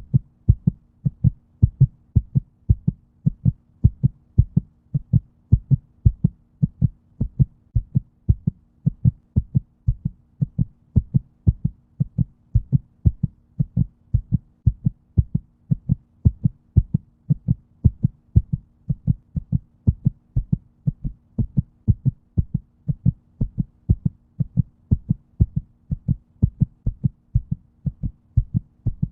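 Human heartbeat: steady lub-dub pairs of low thumps repeating at an even rhythm, with a faint steady hum underneath.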